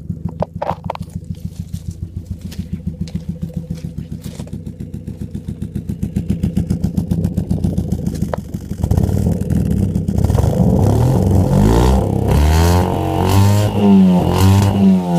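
Mk4 Ford Fiesta four-cylinder engine with the muffler deleted, idling with an uneven, pulsing exhaust beat from a misfire, then revved up and down several times from about nine seconds in, the pitch rising and falling with each rev.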